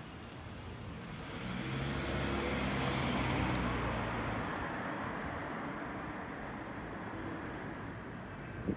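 A motor vehicle passing by on a city street: engine hum and tyre noise swell to a peak about three seconds in, then fade away over steady traffic background.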